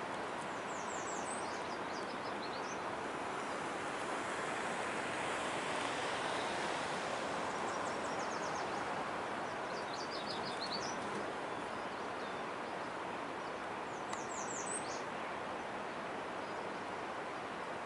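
Steady distant rushing of a freight train's cars rolling across a steel truss bridge. A songbird sings short, fast series of high repeated notes four times over it.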